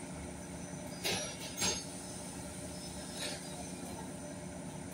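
Chain hoist's chain clinking three times, twice close together and once more faintly, as it holds the swaying engine, over a steady low workshop hum.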